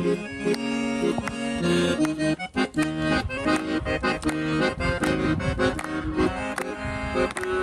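Instrumental interlude of a gaúcho song: an accordion plays a melody over held chords, with a steady rhythmic backing.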